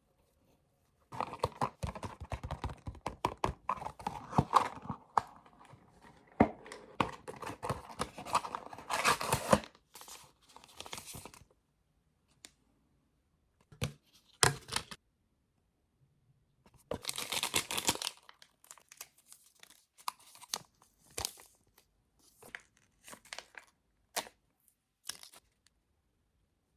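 Small objects being handled: crinkling and tearing of packaging mixed with clicks and light knocks, in a long busy stretch, then several shorter bursts with pauses between.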